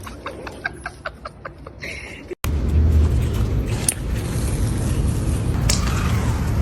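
A quick run of short, evenly spaced pulses, then an abrupt cut to a steady low rumble of road vehicles.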